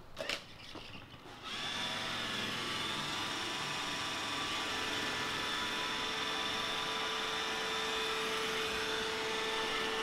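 iRobot Roomba E6 robot vacuum starting its cleaning run about a second and a half in, then running steadily on a hard floor with a steady whine over its motor and brush noise; a bit loud.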